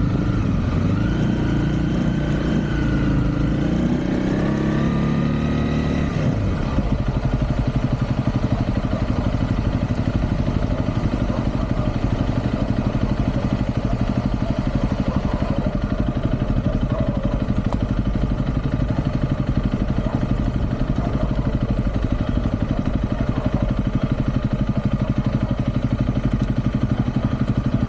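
Motorcycle engine running on the move. Its pitch rises and falls with the throttle for about the first six seconds, then it settles into a steady speed with a fast, even pulse.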